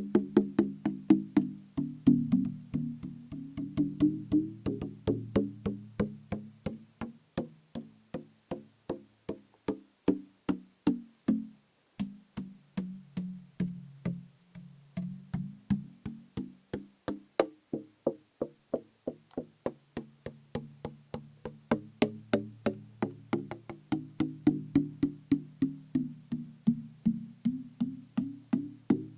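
Fingers tapping steadily on a plastic bottle partly filled with liquid: hollow, pitched knocks about three a second whose pitch shifts as the liquid moves, with a short pause about twelve seconds in.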